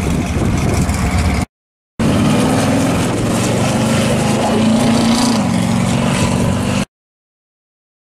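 Supercharged V8 of a purple pro street second-generation Chevrolet Camaro running. A low rumble is broken by a brief gap in the sound about a second and a half in. The engine then comes back with a higher steady note as the car drives off, and that note drops in pitch about five seconds in. The sound cuts off suddenly about seven seconds in.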